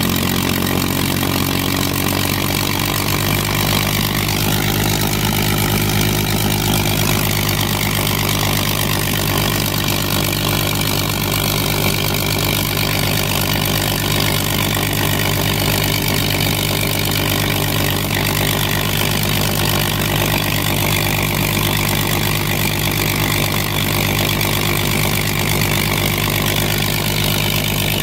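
Spitfire Mk XIV's Rolls-Royce Griffon V12 running steadily on a ground engine run, turning its propeller. The note shifts slightly in the first couple of seconds, then holds even.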